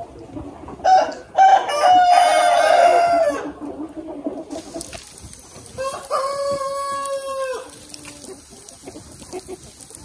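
Rooster crowing twice: a long, loud crow about a second in and a second, lower-pitched crow around six seconds in, ending on a short lower note. Chickens cluck faintly in between.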